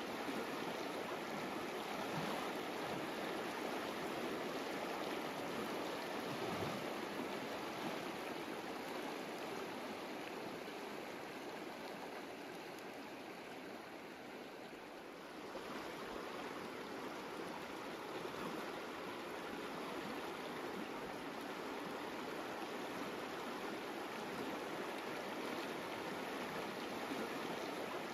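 Steady rushing of a fast, shallow river flowing past its gravel bank. The sound eases a little past the middle, then comes back abruptly.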